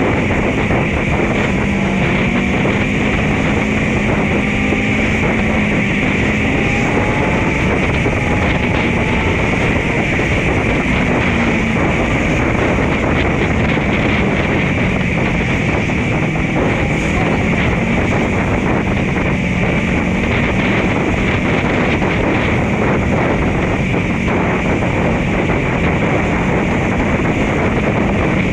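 Motorcycle engine running at a steady cruise, its pitch drifting slightly up and down with the throttle, under heavy wind noise on the microphone.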